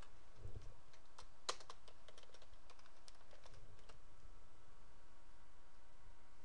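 Computer keyboard typing: a run of light key clicks as a password is entered, stopping about four seconds in. After that only a faint steady hum remains.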